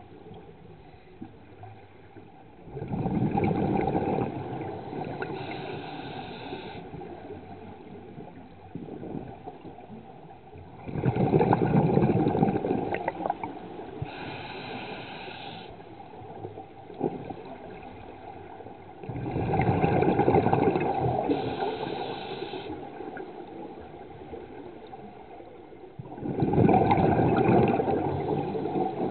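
Scuba diver breathing through a regulator underwater: a bubbling rush of exhaled air about every eight seconds, four times, each followed by a shorter, higher hiss of the inhale.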